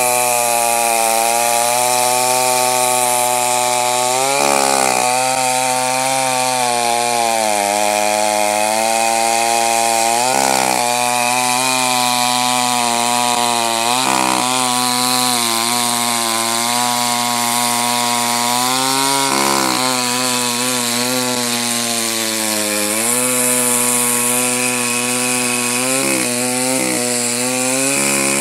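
Vintage Dolmar CC two-stroke chainsaw running at full throttle while ripping lengthwise through a large log. Its engine pitch sags as it bogs in the cut and jumps back up every few seconds.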